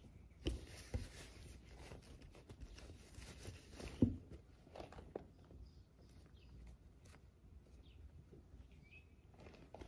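Canvas bags and small items handled on a tabletop: soft cloth rustling, with a few light knocks as things are picked up and set down, the sharpest about four seconds in.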